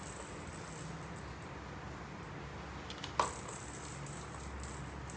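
Balls rattling in bursts as they roll around a plastic cat ball-track toy being batted by a cat, with a sharp knock about three seconds in.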